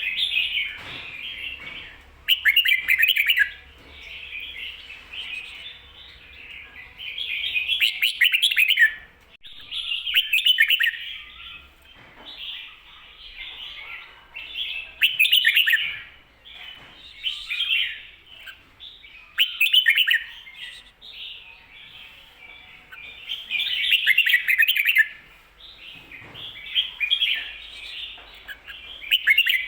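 Red-whiskered bulbul singing loud, short warbled phrases every few seconds, with quieter chatter between them. These are the doubled "kho-ta-ra" phrases that Thai bulbul keepers play to caged birds for them to learn.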